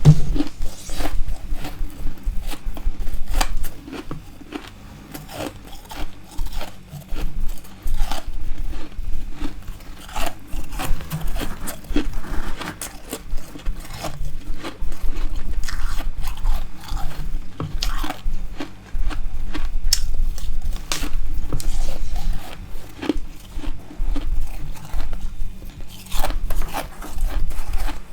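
Close-up crunching and chewing of a mouthful of powdery frost ice, a dense run of crisp crackles and bites. It goes quieter for a few seconds near the start, then the crunching picks up again.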